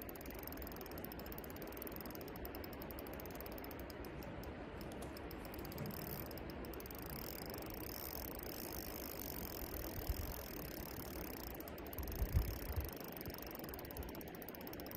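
Spinning reel on a bolognese rod being wound, its gears giving a fast, even clicking; a few dull knocks near the end.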